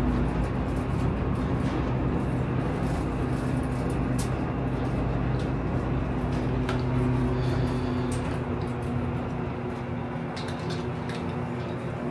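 Elevator car travelling up its shaft: a steady hum with a low rumble that fades about eight seconds in as the car slows.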